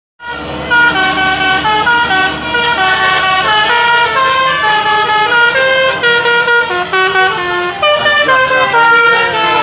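Bus telolet basuri horn, a multi-tone musical air horn, playing a fast melody of short stepped notes, over a steady low engine drone.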